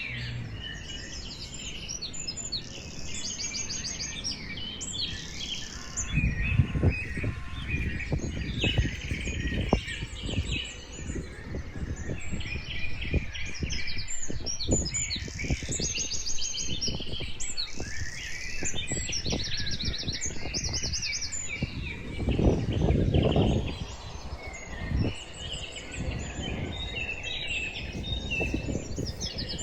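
Many small songbirds chirping and twittering continuously, with quick repeated trills. A low rumble comes and goes underneath, loudest about two-thirds of the way through.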